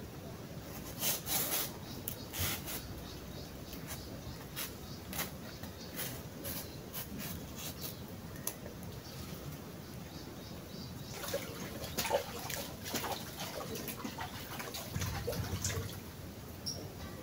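Rustling and crackling of a large green leaf being handled and folded, with scattered irregular clicks, busier in the second half.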